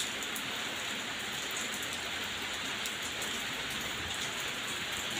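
Steady rain falling on a wet yard: an even hiss with many small drops ticking close by.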